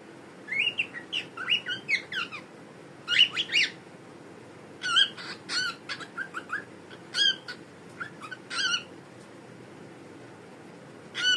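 Pet cockatiel giving a run of short whistled chirps and calls that glide up and down in pitch, in quick clusters, then falling quiet for about two seconds before one more call near the end.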